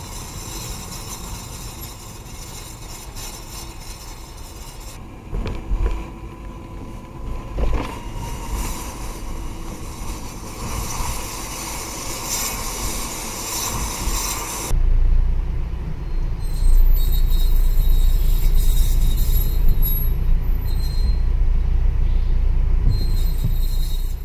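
Metallic scraping and squealing from a wheel of a 2015 Volvo S60 while driving, over tyre and road noise, in several takes that change abruptly. It is the sign of the brake disc's dust shield rubbing against the disc.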